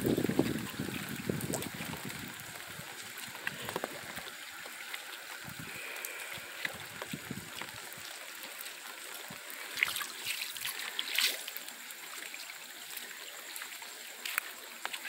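Light rain still falling on a wet paved street: a steady soft hiss of rain with trickling runoff, and a couple of sharp drip-like clicks about ten and eleven seconds in.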